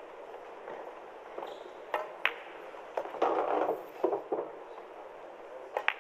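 Pool balls clicking: a cue tip strikes the cue ball and the cue ball hits an object ball a moment later, then more sharp ball clicks follow, with a short rattle a little after three seconds in. A low steady background hiss lies under the clicks.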